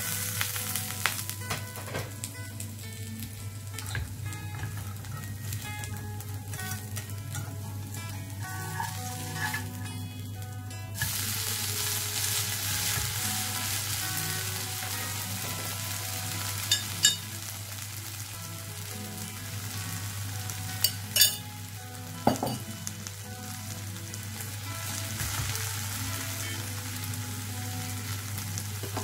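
Potato and egg pancake frying in oil in a pan: a steady sizzle that grows louder about eleven seconds in, with a few sharp clicks in the second half.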